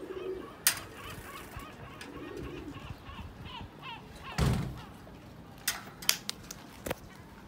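Domestic pigeons cooing softly, twice, with several sharp clicks and one heavier thump about four and a half seconds in.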